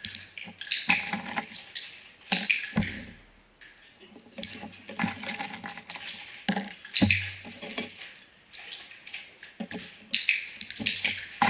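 Irregular sharp clicks and taps from small plastic cups and a container being handled on a tabletop, with a few brief low hums.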